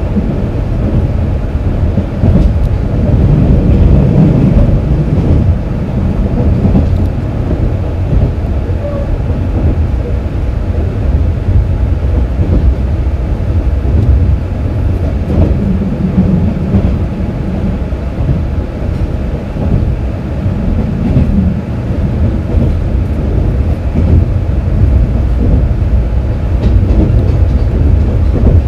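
KiHa 47 diesel railcar running between stations, heard from on board: a steady low rumble of the diesel engine and wheels on the rails.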